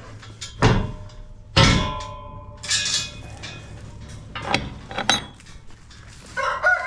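Several sharp metallic clanks and knocks at irregular intervals, the loudest about a second and a half in, over a low steady hum.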